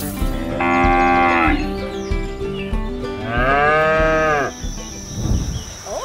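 A cow mooing twice: a level call of about a second starting half a second in, then a second call about three seconds in that rises and falls in pitch.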